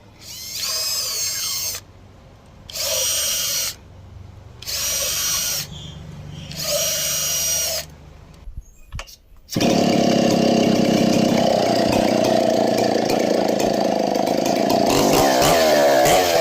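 Four short bursts of a small power tool grinding, about a second each, as the saw chain's teeth are sharpened. About nine and a half seconds in, a chainsaw engine starts up and runs loud and steady, revving near the end.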